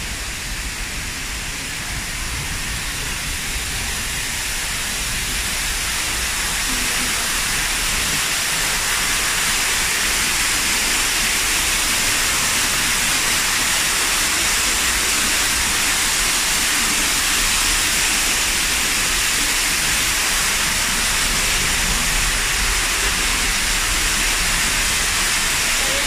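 Artificial waterfall: water pouring down a rock face and splashing, a steady rushing hiss that grows louder over the first several seconds, then holds steady.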